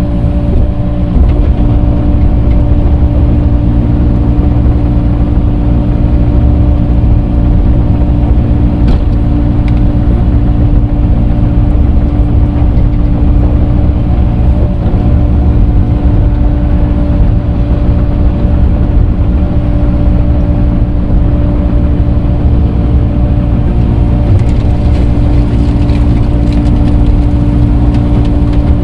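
Engine of an earthmoving machine running steadily at constant speed while grading dirt with a grading bucket: a loud, even hum with a strong held tone over a low rumble.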